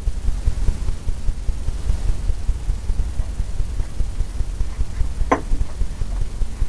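Steady low rumble, with one short sound about five seconds in.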